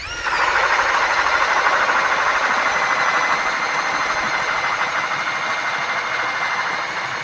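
DeWalt 60-volt cordless drill/mixer driving a K-Drill ice auger, boring a hole through lake ice. The motor whine rises as it spins up at the start, then runs steadily under load.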